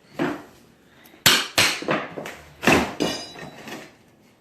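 A series of sharp knocks and bangs from demolition work tearing out old floorboards, about six hits at uneven intervals, one of them with a short metallic ring.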